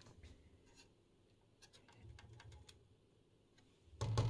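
Light, scattered clicks and taps of a hand-held tool touching the circuit boards and components inside an opened electronics chassis. One much louder knock comes about four seconds in.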